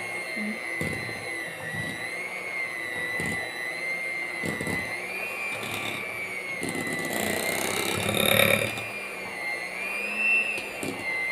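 Electric hand mixer running with its beaters whipping mashed potatoes in a glass bowl: a steady motor whine that wavers slightly in pitch, with occasional knocks of the beaters against the bowl.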